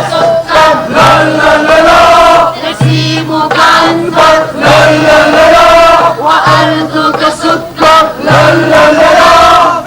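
A group of scouts chanting a song together in unison, in phrases of a second or two, with a short low note coming back about every two seconds.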